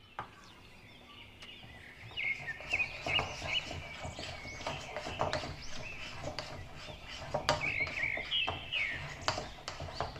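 Softened butter, brown sugar and cinnamon powder being stirred together in a ceramic bowl, starting about two seconds in: repeated knocks and scrapes of the utensil against the bowl, with high chirping sounds over them.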